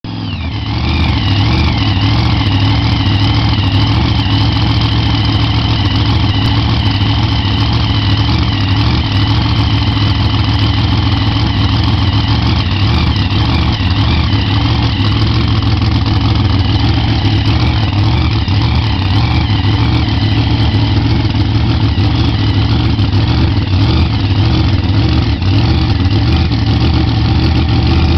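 A new supercharged Hemi V8 in a drag race car idling steadily on a test run.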